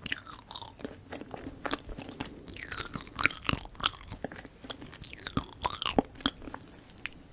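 Close-miked ASMR chewing and biting of sticky Korean sweets: candied figs and yanggaeng. The mouth makes many quick wet clicks and smacks, busiest in the middle and tailing off near the end.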